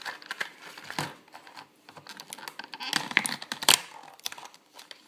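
Plastic toy packaging being handled: irregular clicks and crinkles, with one sharper click about three and a half seconds in.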